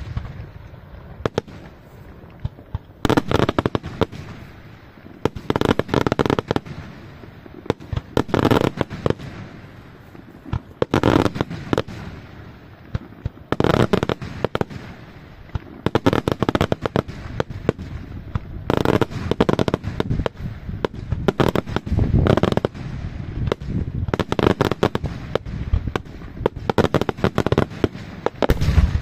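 Daytime fireworks: aerial shells bursting overhead in quick clusters of sharp bangs and crackles, a new volley every two to three seconds, with a heavier boom at the very end.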